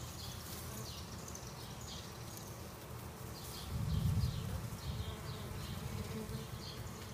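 Honeybees from a package buzzing in a steady hum, which swells louder for a moment about four seconds in.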